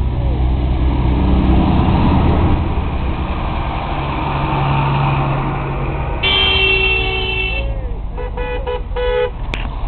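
Diesel tractors passing close by with a low engine rumble. About six seconds in, a vehicle horn sounds one long blast of about a second and a half, then a quick run of about five short toots.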